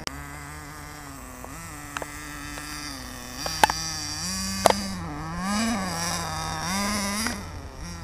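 Small .18-size two-stroke nitro engine of an RC monster truck running, its buzzing pitch rising and falling as the throttle is worked, louder in the second half. Two sharp clicks stand out about halfway through.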